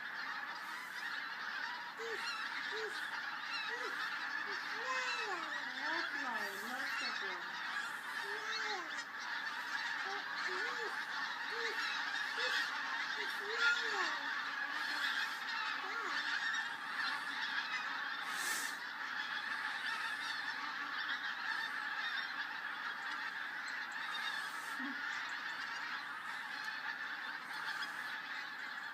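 A large flock of pink-footed geese calling in flight overhead: a dense, unbroken chorus of many honking calls, with a few louder, lower separate calls standing out in the first half.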